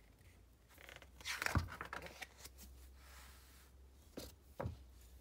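A large picture-book page being turned by hand: paper sliding and rustling, loudest about a second and a half in, followed by two soft knocks near the end.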